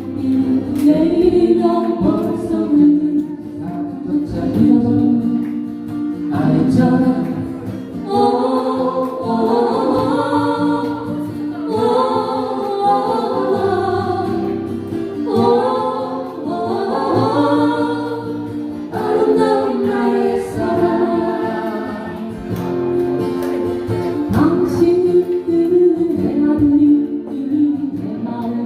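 Music: a slow folk song with acoustic guitar accompaniment and a sung melody, with no words made out.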